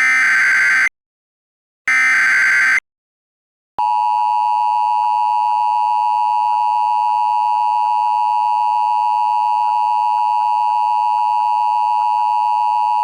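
Emergency Alert System broadcast tones: two one-second bursts of the rapid warbling SAME digital header, with a second of silence after each, then, about four seconds in, the steady two-tone EAS attention signal, which holds unbroken.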